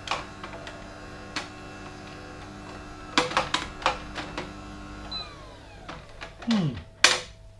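Philips masticating juicer's motor running with a steady hum, with a few sharp clicks and knocks over it. About five seconds in the motor stops and its hum falls in pitch as it winds down.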